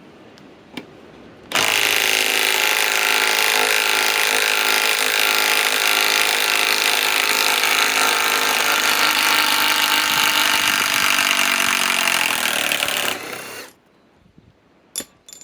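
Milwaukee M18 Fuel compact impact wrench hammering continuously as it drives a 6-inch lag screw, for about eleven seconds, then stopping.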